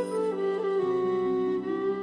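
Slow, sad background score of bowed strings, with held notes that change about a second in.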